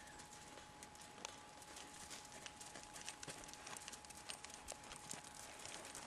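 Faint hoofbeats of a ridden horse moving over the dirt of a riding arena, heard as soft, irregular clicks several times a second.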